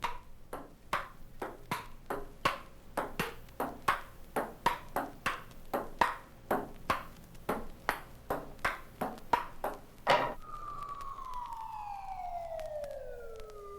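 A recorded game of ping-pong: the ball clicks off paddles and table about three times a second for some ten seconds. Then a siren starts and falls steadily in pitch.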